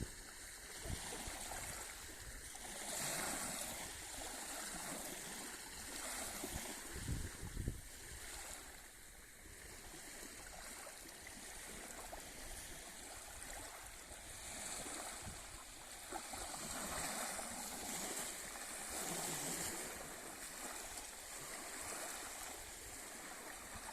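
Small waves of the Sea of Azov washing onto the shore, swelling and fading every two to three seconds, with a brief low rumble about seven seconds in.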